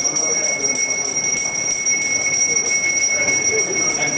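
Indistinct murmur of people talking in a room, under a steady high-pitched electronic whine that does not change.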